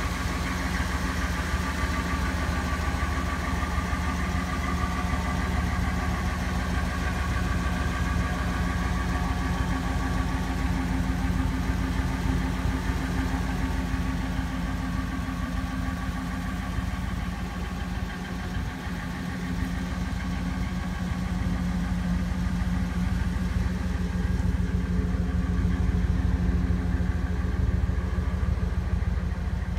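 A 2000 Ford 15-passenger van's engine idling steadily at an even, unchanging speed.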